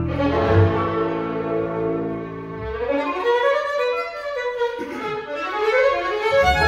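Hungarian string band playing: violins, viola, cimbalom and double bass. The double bass drops out a little under three seconds in, leaving the violins and cimbalom alone, and comes back in near the end.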